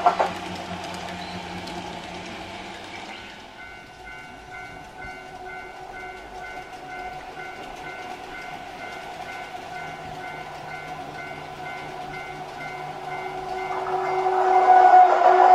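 Freight train running on rails, hauled by an EF81 electric locomotive, with a faint regular pulsing tone about two or three times a second; the train noise grows louder near the end as it draws close.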